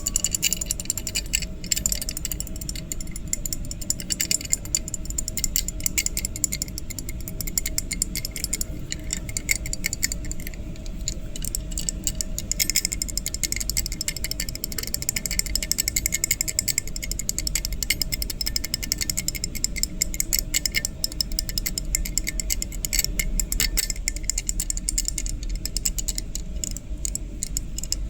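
Dense, rapid mechanical clicking and rattling, continuous and even.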